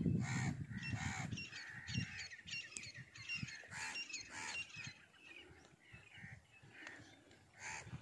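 Nilgai (blue bull antelope) calling: several short calls in the first couple of seconds, with small birds chirping high over them.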